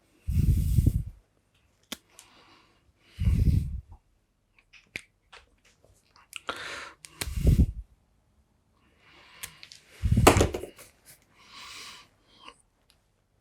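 A person breathing close to the microphone: four slow breaths about three seconds apart, each a faint hissing intake followed by an exhale that blows on the mic. Small scattered clicks and taps between the breaths.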